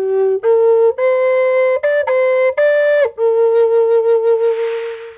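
Wooden flute playing a short, slow melody of about six notes, the last one held long with vibrato and fading away; a soft hiss swells briefly near the end.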